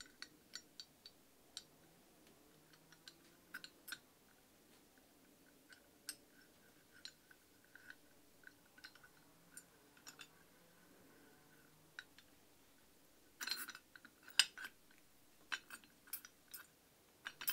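Scattered light metal clicks and knocks of a Record No. 5 bench vise being reassembled by hand, its moving jaw's slide bar pushed into the cast body and the screw brought into place. A cluster of louder knocks comes about three-quarters of the way through.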